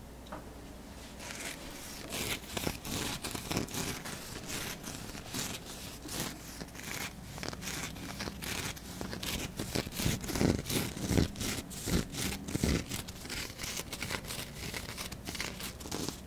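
Close-miked scratching and crackling of fingertips rubbing and tapping over a rough amethyst crystal cluster. It is a dense run of small scratches and taps that starts about a second and a half in.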